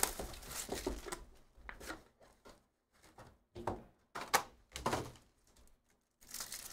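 Hands unwrapping and handling a trading card box: the plastic shrink-wrap crinkles as it is peeled off, then come scattered rustles and a few knocks of cardboard and card packs, and a foil pack begins to crinkle near the end.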